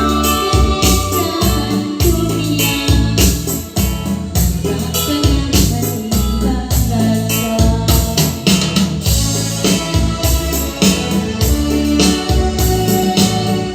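Music with a steady beat: regular percussion hits over a strong, pulsing bass line.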